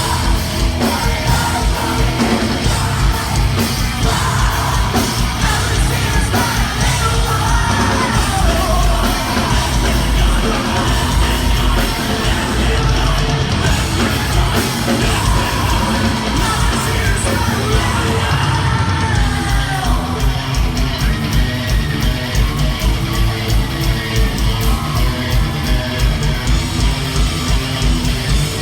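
A post-hardcore rock band playing live: yelled and sung vocals over loud electric guitars, bass and drums, with an evenly pulsing beat in the last third.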